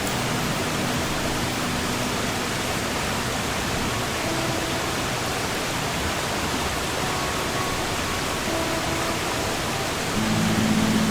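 A steady wash of sea noise under soft, sparse acoustic guitar notes, with a fuller guitar chord coming in near the end.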